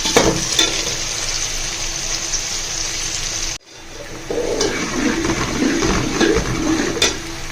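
Onions sizzling as they fry in hot oil in a pan, with a few knocks of a spoon stirring near the start. The sizzle cuts off abruptly about halfway through, and a different, busier noise of clattering and water-like splashing follows.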